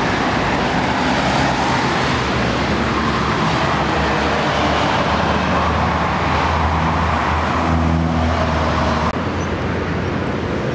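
Road traffic: a steady hiss of vehicles with a low engine hum that grows stronger toward the middle and cuts off near the end.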